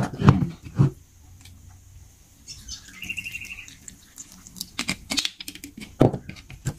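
Apple cider vinegar poured from its bottle onto chopped tomatoes in a ceramic bowl: a couple of sharp clicks as the bottle is handled, then a run of small pattering splashes of liquid. A short high chirping sound comes about three seconds in.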